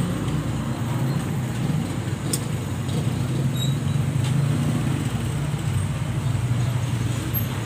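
A steady low rumble, like background road traffic or an idling engine, with two faint clicks of small parts being handled.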